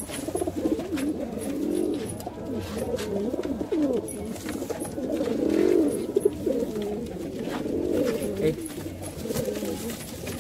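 Domestic pigeons cooing steadily, several birds' coos overlapping one another.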